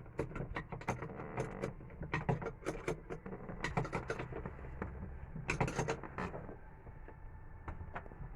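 Irregular clicks, taps and rattles of small hard parts being handled, over a low rumble: battery cables and their connectors being worked by hand.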